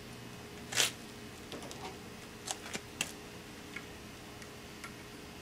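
Screwdriver working against the steel yoke and bearing cap of a universal joint, prying at the bearing-cap retaining clip: a short metallic scrape about a second in, then a few light clicks, over a faint steady hum.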